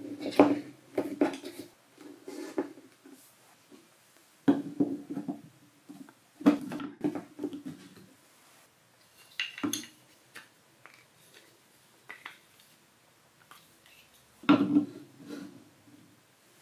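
Balls rolling and clattering down a TrixTrack wave-slope marble run, step by step, in several runs of rapid clicks and knocks with quieter gaps between.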